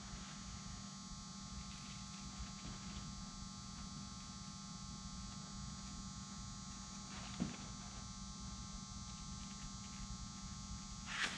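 Steady electrical mains hum with several fixed tones. Under it, pinking shears cut lightweight aircraft fabric faintly, with one sharper click about seven seconds in.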